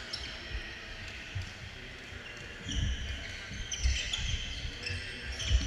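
Gymnasium court noise: sneakers squeaking on the hardwood floor and low thumps of footfalls, getting busier about halfway through.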